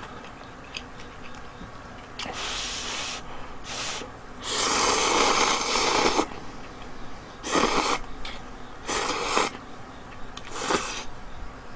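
A person slurping instant ramen noodles off chopsticks: about six noisy slurps, the longest lasting nearly two seconds around the middle, the rest short.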